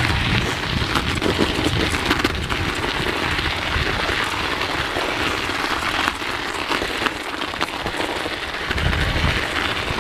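Mountain bike tyres crunching and crackling over packed snow in a steady stream of small crackles, with wind buffeting the microphone in a low rumble.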